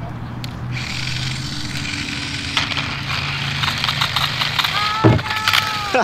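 Small electric motor of a remote-control toy dirt bike whirring, its hard plastic wheels rattling and clicking over a concrete path, starting about a second in. A single thump comes about five seconds in.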